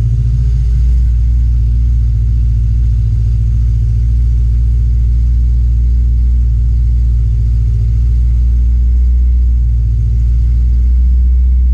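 BMW E92 M3's S65 V8, fitted with an ESS supercharger, idling steadily: an even low rumble.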